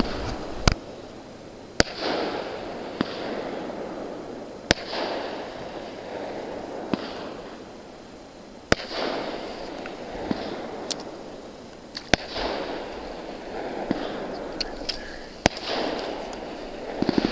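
Fireworks bursting: a sharp bang every few seconds with fainter pops between, each bang followed by a rumbling echo that dies away.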